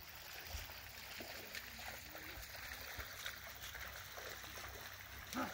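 Faint outdoor ambience: a soft steady hiss with a few weak, distant voice-like sounds, and a brief louder sound just before the end.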